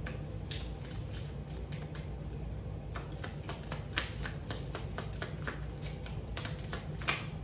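Tarot cards being shuffled by hand: a run of irregular soft taps and flicks, a few of them sharper, over a steady low hum.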